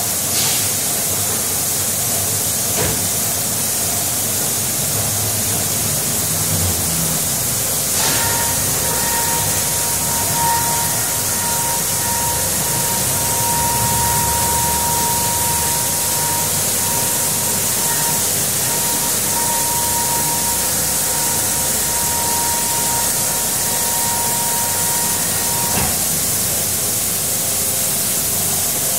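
Automated car wash heard from outside: a steady hiss of water spray over running machinery. About eight seconds in, a steady whine with a click comes on and cuts off near the end.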